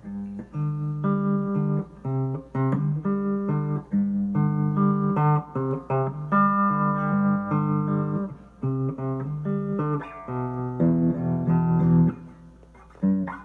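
Guitar playing a song riff in power chords: short, clipped chords in a steady driving rhythm, moving between a G and an A power chord. Near the end one chord rings longer, then the playing stops about a second before the end.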